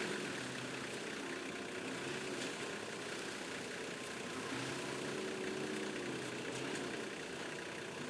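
Four-wheel-drive vehicle engine running at low revs, its pitch wavering gently up and down over a steady background hiss.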